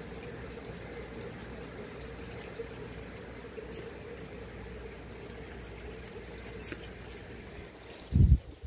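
Steady low background hum, with a few faint clicks and a short, loud low thump near the end.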